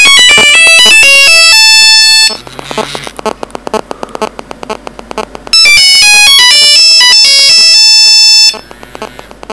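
Nokia mobile phone ringing: a loud melody of pure beeps stepping quickly in pitch, heard twice for about three seconds each. A quieter rapid pulsing fills the gaps between the two bursts.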